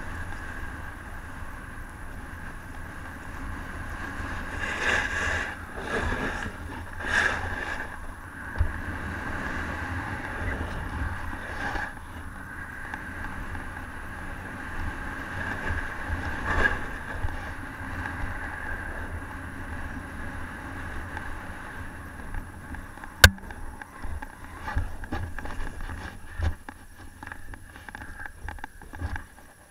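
A snowboard sliding over packed snow, heard from a helmet-mounted camera, with wind rumbling on the microphone. A single sharp knock comes about two-thirds of the way through. Scattered crunches and knocks follow near the end as the rider comes to rest in the snow.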